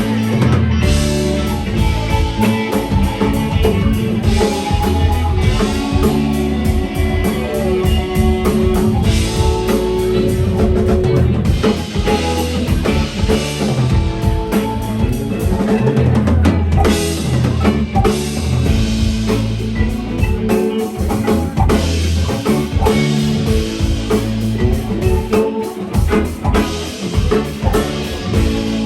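Live jam band playing, with electric guitar over a drum kit and bass.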